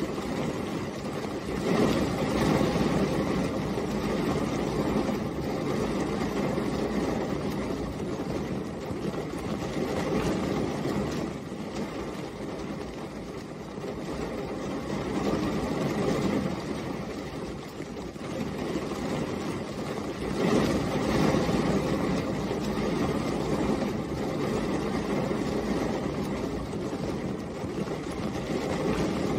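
Steady rain falling on a car, as heard from inside it, a dense patter that swells and eases every several seconds.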